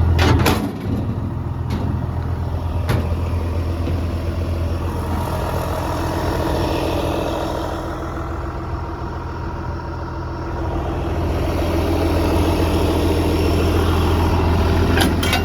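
John Deere 200 LC excavator's diesel engine idling steadily, with a few sharp knocks near the start and again near the end.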